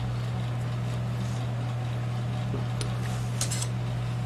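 A steady low hum, with a few faint light clicks about three seconds in as digital calipers are handled against a crankshaft.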